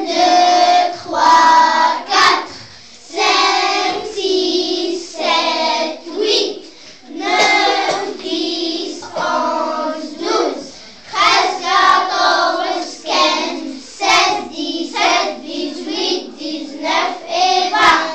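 A group of young children singing a counting song together in unison, in short phrases with brief breaks between them.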